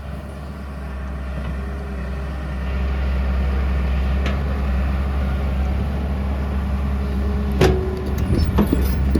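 Heavy diesel engine running steadily with a deep rumble that grows louder about three seconds in. A sharp knock comes near the end, followed by irregular clattering.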